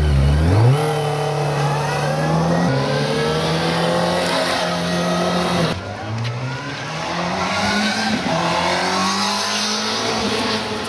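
Sport motorcycle engine accelerating, its pitch climbing and dropping back as it shifts up through the gears.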